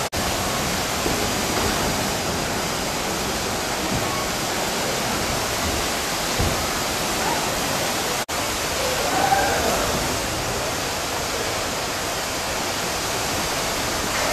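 Steady rush of running water at a water park, an even hiss with no rhythm. Faint distant voices rise briefly about nine seconds in.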